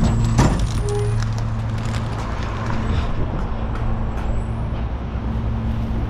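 Recycling truck's engine running with a steady low hum, with a short knock about half a second in.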